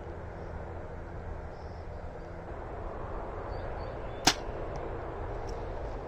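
A compound bow is shot once about four seconds in: a single sharp snap as the string is released and the arrow leaves. Behind it runs a steady low outdoor hum.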